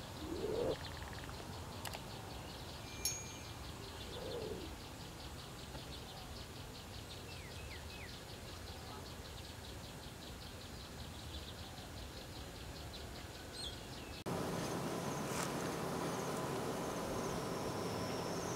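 Outdoor countryside ambience of insects chirping in a fast, even pulse, with scattered bird calls, including two short rising calls in the first few seconds. About 14 s in the sound cuts to a louder ambience with a steady hum under the insects.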